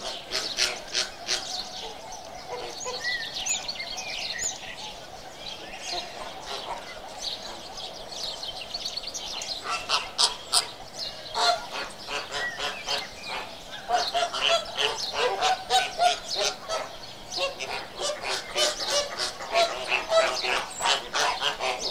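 A flock of flamingos honking, with many goose-like calls overlapping. The calls grow into a dense, louder chorus from about ten seconds in.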